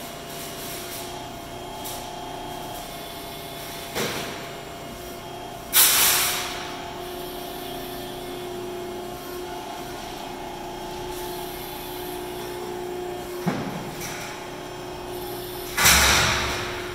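CNC hydraulic press brake running with a steady hydraulic power-unit hum. Twice, a click is followed about two seconds later by a loud, sudden hissing rush that fades within about a second.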